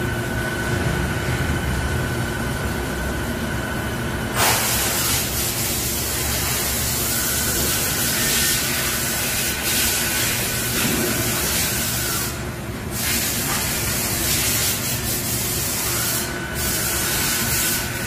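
Doosan DB130CX CNC horizontal boring mill running: a steady high whine comes and goes in stretches. A loud hiss starts suddenly about four seconds in and cuts out briefly twice near the end.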